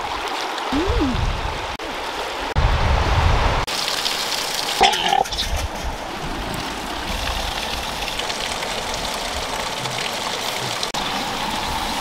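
Shallow stream water rushing over rocks, in short clips that change abruptly. A short rising-and-falling call comes about a second in, and another short call comes near five seconds.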